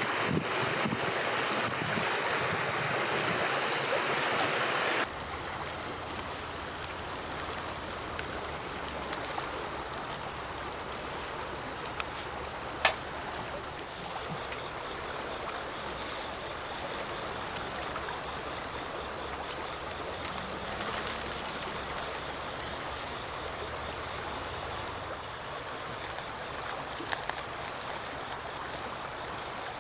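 Steady rushing noise like running water, louder for the first five seconds and then dropping suddenly, with a few faint clicks.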